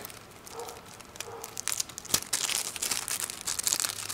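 Small clear plastic bag crinkling as fingers handle and open it. It gives a rapid crackle that gets busier and louder about a second and a half in.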